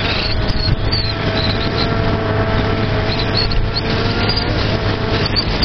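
Honda CG 125 Fan's single-cylinder four-stroke engine running at a steady cruise through an aftermarket Guela exhaust with its baffle removed.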